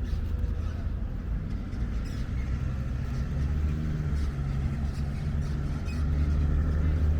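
An engine running, a low steady rumble with a pitched drone that comes in about two seconds in and grows a little louder near the end.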